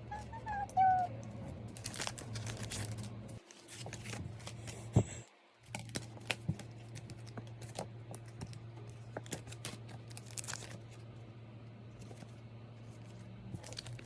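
Plastic and paper packaging crinkling and tearing as a parcel of merchandise is opened by hand, with scattered small clicks and rustles of handling.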